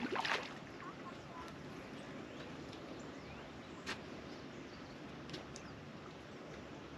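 Quiet outdoor ambience with a steady low hiss and a few faint bird chirps, broken by sharp clicks of fishing tackle being handled: a cluster right at the start, then single clicks about four and five and a half seconds in.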